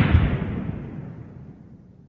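The tail of an explosion sound effect: a rumbling blast that started just before, dying away steadily over about two seconds.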